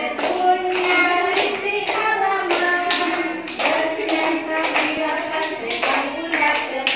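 A group of young children singing together in unison, with sharp hand claps roughly every half second on the beat.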